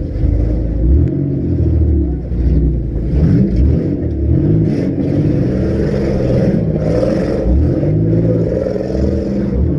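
Several compact-car engines revving hard at once in a demolition derby, their pitches rising and falling over one another, with a couple of short bangs of cars hitting in the middle.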